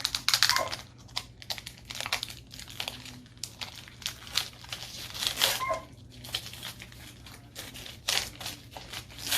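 Foil wrapper of a Pokémon trading-card booster pack crinkling and tearing in irregular bursts as it is torn open by hand.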